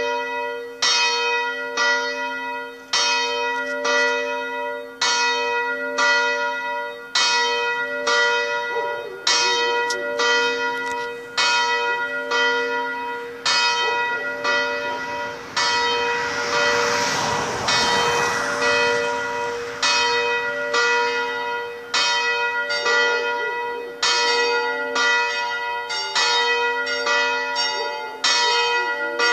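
Two swinging church bells, a 300 kg bell cast in 1947 and a 110 kg bell cast in 1928, both driven by electromagnetic pullers, ringing the evening bell. The strokes come about once a second at first, then faster and overlapping from about eight seconds in, each leaving a long ringing hum. A rushing noise rises and fades around the middle.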